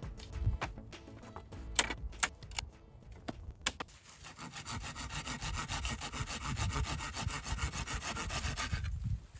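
Folding pruning saw cutting through a thin willow rod in quick rasping strokes, starting about four seconds in and stopping shortly before the end. Before that, a few sharp clicks and knocks of willow rods being handled and bent.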